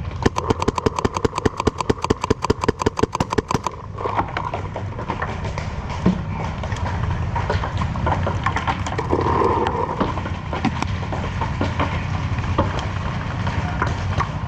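A paintball marker firing a rapid, even string of shots, about ten a second, for nearly four seconds, then stopping abruptly. After that, scattered fainter shots over a steady low rumble.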